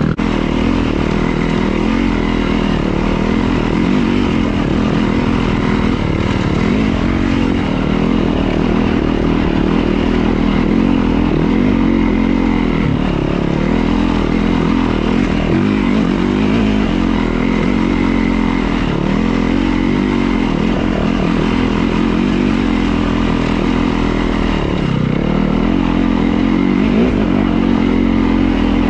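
Dirt bike engine running continuously while riding a rough trail, its note rising and falling with the throttle every couple of seconds.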